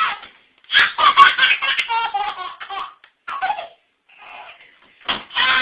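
A baby belly-laughing in repeated bouts: one long run of laughter, then shorter bursts with brief pauses between them.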